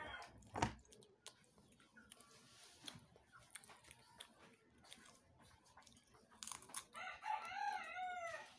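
A boy's quiet crunching as he bites and chews a SkyFlakes cracker, with a sharp crunch about half a second in. Near the end a rooster crows once, a call of about a second and a half that rises and falls in pitch.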